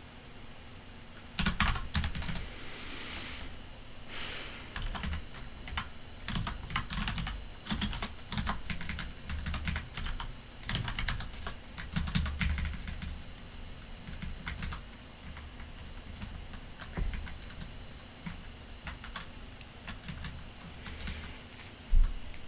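Typing on a computer keyboard in irregular bursts of quick key clicks, with one louder knock near the end.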